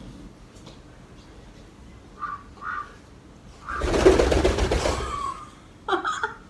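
A white domestic duck gives two short quacks, then beats its wings hard as it is lifted, a loud flapping rush lasting about a second and a half, followed by more short cries near the end.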